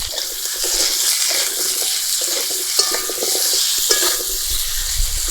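Potatoes frying in hot oil in a kadai: a steady sizzle, with a spatula stirring and scraping against the pan in scattered knocks.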